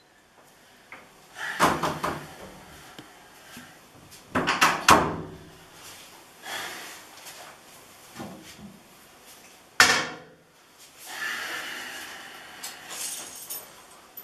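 Door and handling knocks in a small bathroom: two bursts of clunks and clatters in the first five seconds, one sharp bang near the ten-second mark, then a longer rustle.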